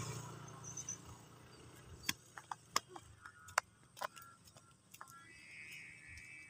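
Motor scooter engine fading away over the first second as the scooter rides off, followed by several faint, sharp clicks scattered through the rest and a faint steady high hum near the end.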